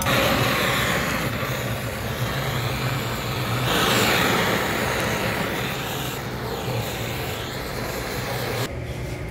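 Handheld butane torch, a torch head on a butane canister, blowing a steady hissing flame. It is a little louder about four seconds in and cuts off sharply near the end.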